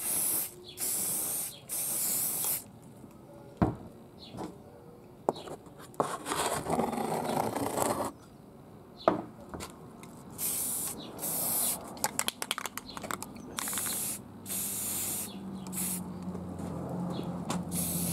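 Aerosol spray can of white primer spraying in short, repeated bursts of hiss, with pauses between, plus a few sharp knocks.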